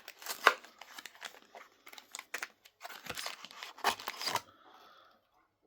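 Cardboard and plastic packaging of a trading-card kit being handled and opened: a run of sharp clicks and rustles, the loudest about half a second in, quieter near the end.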